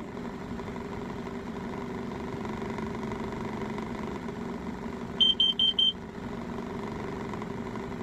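Car engine idling steadily, its exhaust piped into a box holding a Mudder carbon monoxide and smoke detector. About five seconds in, the detector gives four quick, loud, high-pitched beeps: its alarm triggering on the carbon monoxide in the exhaust.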